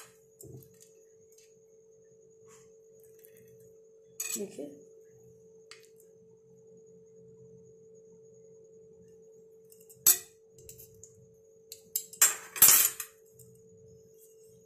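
A fork and knife clink against a ceramic plate a few times, most sharply about ten seconds in and again near the end, over a steady low hum.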